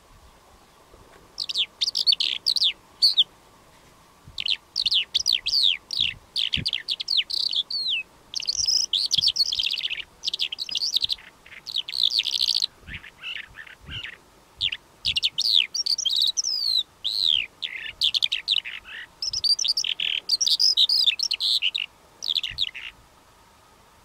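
Calandra lark singing: a fast, varied stream of chirps, trills and whistled notes in phrases of one to three seconds with short breaks. The song starts about a second and a half in and stops shortly before the end.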